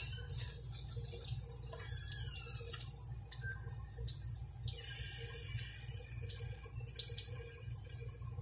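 Lumpia rolls frying in oil in a wok: a steady sizzle with scattered crackles and pops, and now and then the click of metal tongs against the wok as the rolls are turned and lifted.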